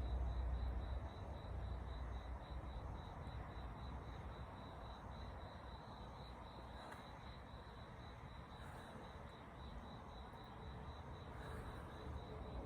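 An insect calling: a steady, rapidly pulsing high-pitched trill that carries on without a break, over a soft outdoor hiss. A low rumble sits under it for about the first second.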